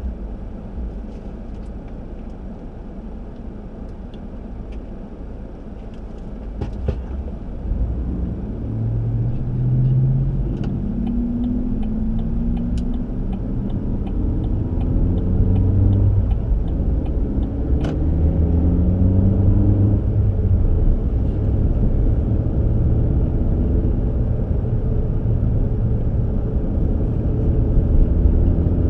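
Road vehicle's engine and road rumble, growing louder from about eight seconds in as the vehicle speeds up. The engine note rises and drops back in steps.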